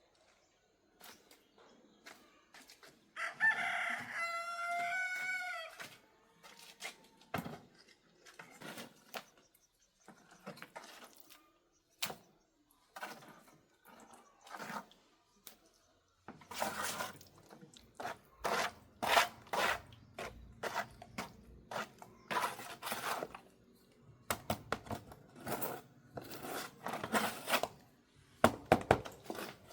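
A rooster crows once, a single call about three seconds long, a few seconds in. Later comes a long run of sharp knocks and scrapes from work on the floor.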